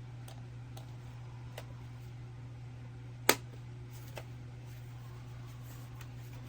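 A steady low electrical hum with a few scattered sharp clicks, the loudest about three seconds in.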